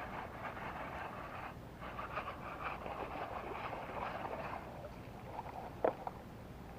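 Rustling, scraping noise of a hooked snakehead being fought and reeled in on a lure rod; it stops about four and a half seconds in, and a single sharp click follows near the end.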